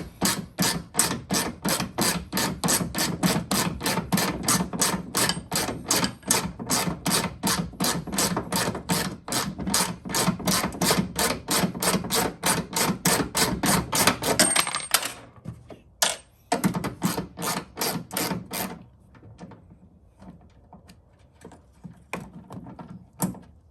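Ratchet wrench with a 10 mm socket clicking in quick, even strokes, about four or five a second, as a bolt is backed out. The clicking stops about fifteen seconds in, followed by a few scattered clicks and knocks.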